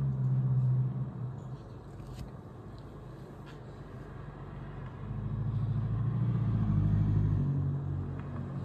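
Motor vehicles passing on a street, their engines and tyres humming: one fades out within the first second or two, and another swells up about five seconds in and fades away near the end.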